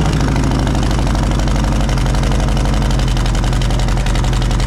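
Harley-Davidson Heritage Classic 114's Milwaukee-Eight 114 V-twin, Stage 2 with a Screamin' Eagle 550 cam, idling steadily through fishtail exhaust pipes.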